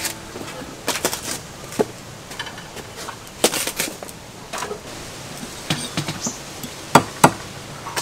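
Kitchenware being handled: scattered clinks and knocks of containers and utensils, with two sharp knocks close together near the end.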